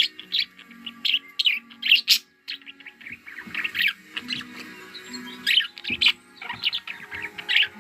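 Budgerigars chirping and chattering in quick clusters of high chirps, over background music with held low notes.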